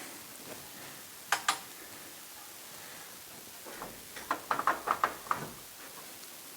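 Sharp knocks: two close together, then a quick run of about six in just over a second.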